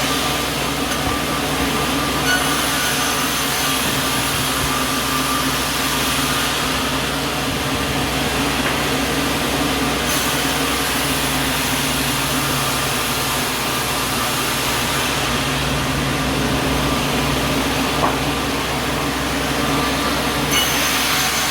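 Sawmill running steadily: a continuous machine drone with an even low hum that holds level throughout.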